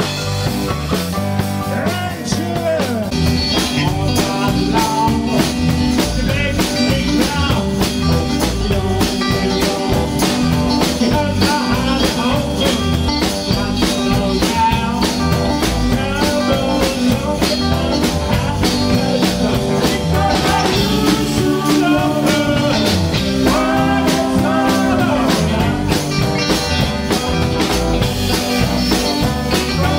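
Live rock band playing: electric guitars, drum kit, bass and keyboard, with a man singing lead through the PA.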